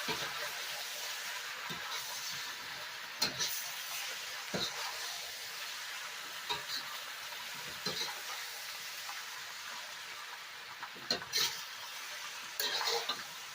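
Stir-fry of pork, chicken, shrimp, mushroom and onion sizzling steadily in a hot pan, with scattered knocks and scrapes of a utensil stirring it, a cluster of them near the end.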